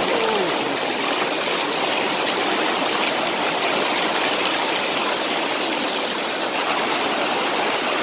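Waterfall water pouring down a sloping rock face close to the microphone: a loud, steady rush.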